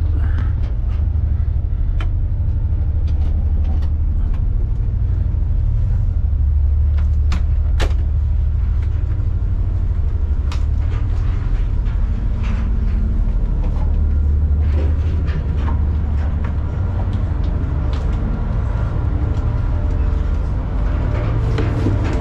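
Steady low drone of an ocean-going tugboat's diesel engines, heard from inside the boat's accommodation, with scattered sharp clicks and knocks throughout.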